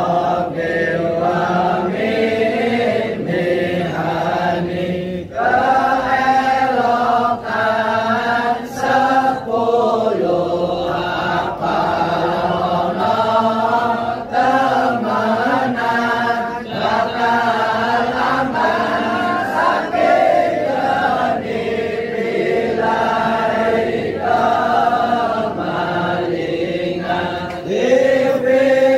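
A group of voices chanting Islamic dhikr (zikir) together in long melodic phrases, with brief pauses for breath between them.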